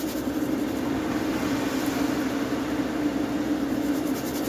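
Extraction fan running with a steady hum, while liquid is poured from a bottle into a foil tray of caustic soda stripping solution, splashing faintly at the start and near the end.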